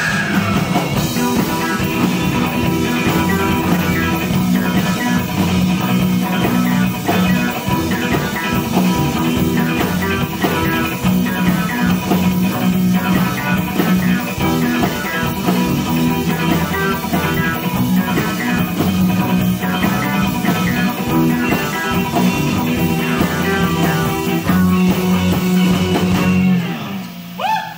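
Rock song playing: electric guitar, bass and drum kit in a steady beat, with a brief drop in loudness near the end.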